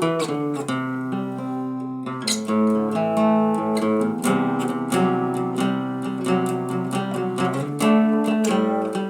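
Acoustic guitar strummed in a steady rhythm, chords ringing with no voice: an instrumental passage of a song.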